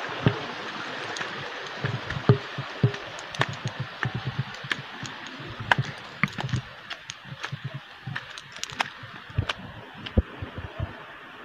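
Footsteps in rubber slippers on wet rock, an irregular run of knocks, thumps and scuffs, over a steady hiss of flowing river water.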